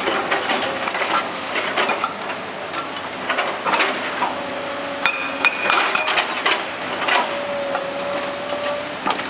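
Hydraulic rock breaker on an excavator hammering rock: a run of sharp, irregular metallic knocks and clinks, with a steady tone underneath at times.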